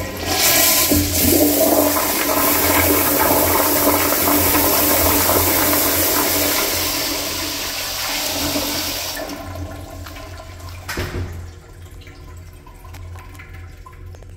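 Crane Plumbing Whirlton flushometer toilet flushing: a sharp click as the flush valve opens, then about nine seconds of loud rushing water swirling down the bowl. The rush dies down after about nine seconds, with a last brief surge around eleven seconds in.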